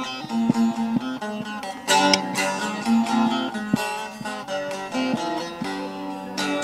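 Bağlama (saz), a Turkish long-necked lute, played solo: a plucked melody with two hard strummed chords, about two seconds in and near the end.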